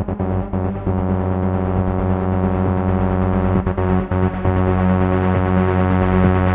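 Electronic dance music: a sustained synthesizer pad over a steady bass, with no vocals.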